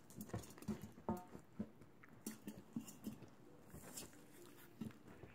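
A litter of puppies eating together from a stainless steel feeding pan: irregular lapping and chewing, with small clicks and taps against the metal.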